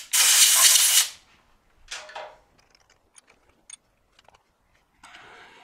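A loud burst of hissing spray lasting about a second, then a shorter burst about two seconds in, followed by a few light clicks as a tap is fitted into the mill's drill chuck.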